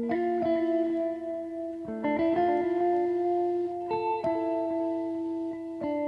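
Background music, its held notes and chords changing about every two seconds.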